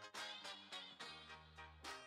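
Background music with a steady beat and a held bass line.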